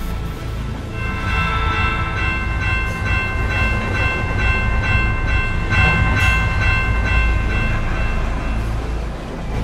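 Train sounds: a steady low rumble of a train, with a multi-tone warning bell ringing about three times a second from about a second in until near the end.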